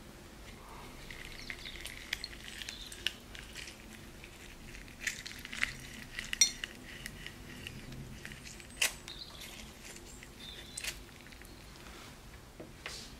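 A fork twisted into a lemon half to squeeze out its juice: soft wet squelching of the pulp and juice dripping into a glass dish, with scattered sharp clicks and taps of the fork.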